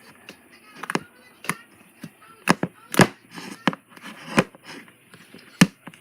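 Slime being squished and pulled in the hands, giving a string of sharp, irregular pops and snaps, about seven in all, the loudest about halfway through.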